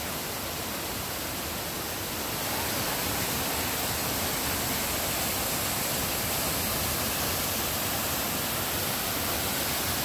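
Waterfall rushing steadily: an even hiss of falling water with no let-up, a little louder from about two and a half seconds in.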